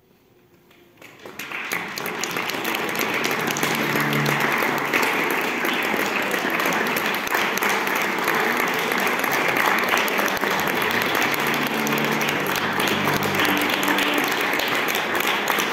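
Audience applause at the end of a concert performance. It breaks out about a second in after a brief hush, quickly builds and continues as full, steady clapping, with some voices among it.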